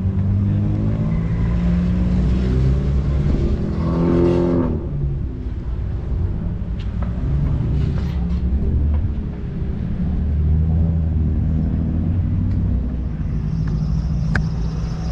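Car engine running, with a rev that climbs and drops away about four seconds in and a smaller swell around ten to eleven seconds. A sharp click comes near the end.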